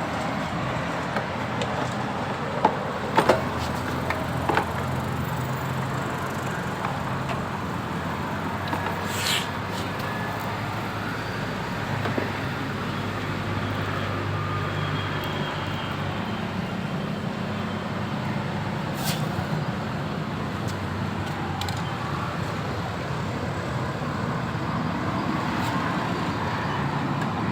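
Steady engine and traffic noise, with a few sharp clicks in the first few seconds.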